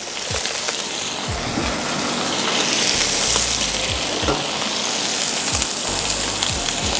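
Chopped onion and small chicken pieces sizzling in olive oil in a frying pan on low heat, the sizzle swelling over the first few seconds after the onion goes in and then holding steady.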